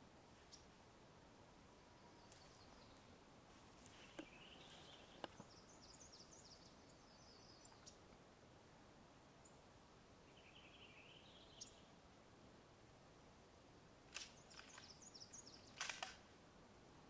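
Near silence: quiet outdoor ambience with faint, high bird chirps now and then, and a few sharp clicks, the loudest near the end.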